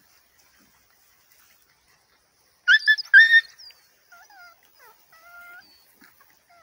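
A puppy yelping twice, sharp and high-pitched, during rough play-wrestling, followed by several softer whines that slide up and down in pitch.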